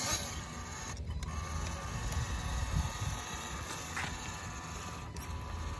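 Electric motor and gear drivetrain of a radio-controlled Defender 90 scale crawler whining steadily as it drives through mud and shallow water, with brief dips about a second in and again near the end.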